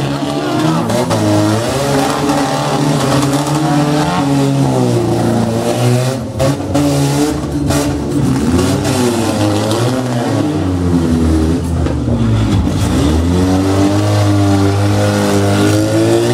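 Demolition derby car engines revving hard and unevenly as the wrecked cars push against each other, the pitch rising and falling over and over. About twelve seconds in the revs drop low, then climb again.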